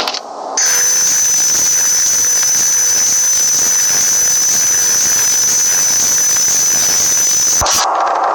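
A loud, steady machine whir with a high whine on top, switched on about half a second in and cutting off sharply near the end.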